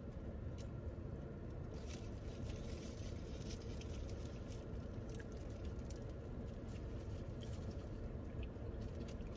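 Soft chewing and small mouth clicks of a person eating a burrito, over a steady low hum.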